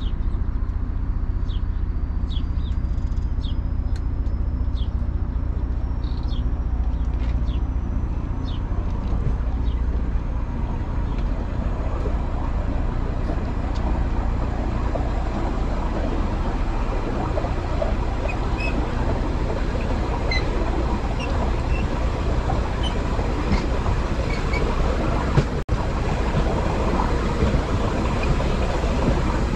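Passenger train running, heard from the driver's cab. The running noise grows gradually louder, and a faint whine rises slowly in pitch over the first dozen seconds as the train picks up speed. There is one sharp click about 25 seconds in.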